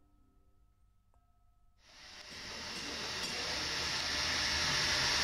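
Faint music notes, then from about two seconds in a steady sizzling hiss that grows louder, with small crackles: melted wax heating in a pan on an electric hotplate.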